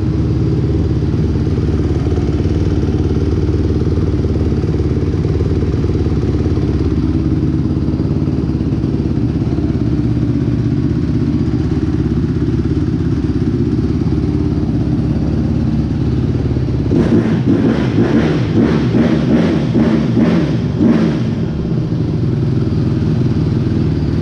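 Honda CRF150's single-cylinder four-stroke engine idling steadily while it warms up just after being started, with fresh oil going round. About two thirds of the way through it runs louder and rougher, with uneven pulses for a few seconds, then settles back to a steady idle.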